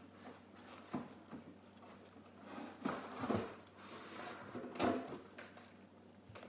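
Someone eating Pringles potato crisps: a few short crunching and handling noises, the loudest around three and five seconds in.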